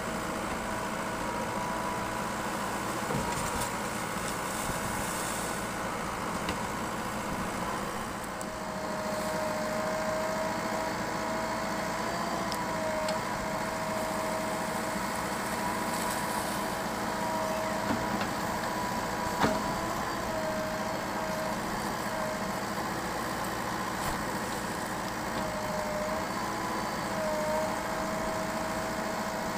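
Diesel engine of a JCB backhoe loader running steadily, its pitch dipping briefly a few times as load comes on. A single sharp click or knock about two-thirds of the way in.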